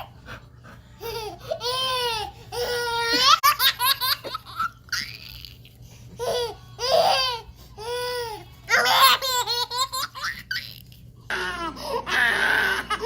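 A baby laughing in several bursts of giggles and belly laughs. Near the end it cuts abruptly to a different voice sound against a louder background.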